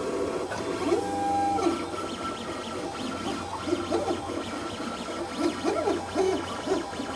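LulzBot TAZ 3D printer running a print: its stepper motors whine in short rising and falling tones as the print head moves along the first layer, with one longer held tone about a second in, over a steady hum.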